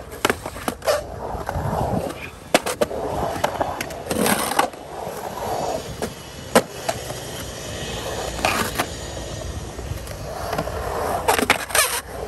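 Skateboard rolling around a concrete pool bowl, the wheel rumble swelling and fading with each pass over the walls, broken by sharp clacks of the board and trucks against the pool coping, with several in quick succession near the end.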